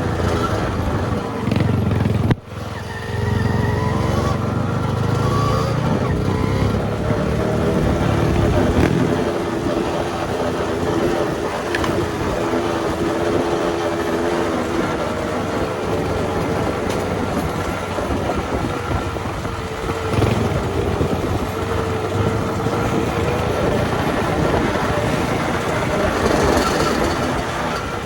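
Trail motorcycle engine running and revving, its pitch rising and falling, with a brief cut-out about two seconds in.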